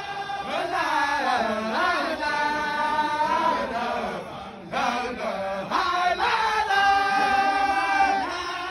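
A group of men chanting together in unison, a Sufi zikr chant sung in long held notes. The voices drop out briefly about halfway through, then come back in.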